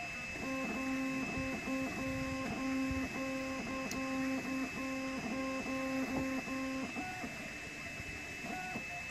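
3D printer stepper motors moving the print head, a run of short stop-start tones of steady pitch, each held a fraction of a second, ending about 7 seconds in. Two brief higher tones follow near the end, over a steady high whine.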